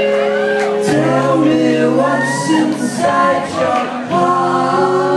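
Live garage-rock band playing: sung vocals with sustained, gliding notes over electric guitar and electric bass.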